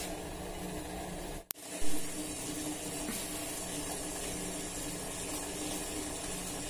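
Water for tea at a rolling boil in a steel pot on the stove, bubbling steadily, with a faint steady low hum underneath. The sound drops out briefly about a second and a half in, then comes back with a short bump.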